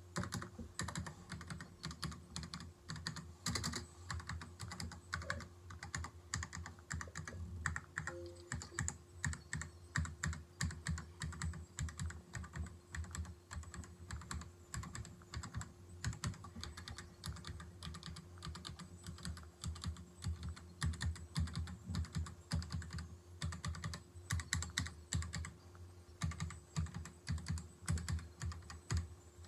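Mechanical computer keyboard being typed on fast and without a break, a steady stream of key clicks several a second.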